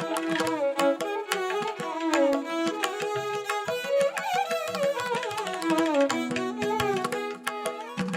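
Instrumental background music in a Carnatic style: a gliding, bowed-string melody over a steady drone, with hand-drum strokes.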